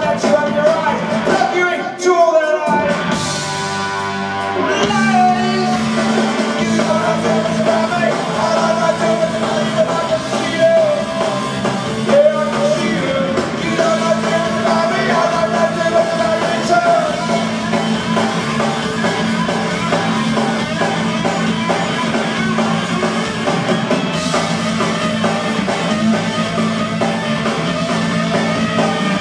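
Live punk rock band playing on stage through a PA: electric guitar, bass guitar and drum kit.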